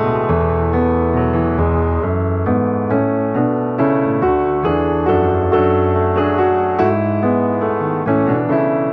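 Background piano music: a steady flow of notes, no speech.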